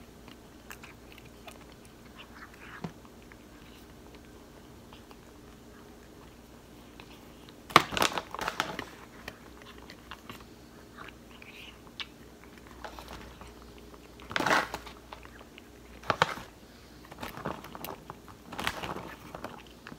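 Cat eating soft food from a stainless steel bowl, with quiet chewing and small clicks. Louder bursts of clattering and rustling come about eight seconds in and several times in the second half.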